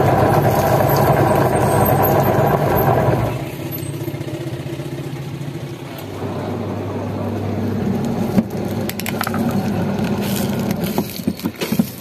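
Sanken twin-tub washing machine's wash motor turning the pulsator in the empty tub through its freshly fitted gearbox, a loud steady hum. About three seconds in it drops to a quieter low hum, with a few sharp clicks and knocks toward the end.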